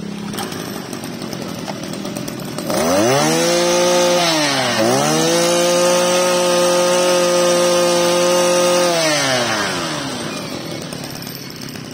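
Mitsubishi TL261 26cc two-stroke brush cutter engine idling quietly, then revved up about three seconds in, dropping briefly, and held at high revs for about four seconds before falling back to idle near the end. The engine pulls up cleanly and evenly, which the seller presents as the sign of a healthy original engine with good compression.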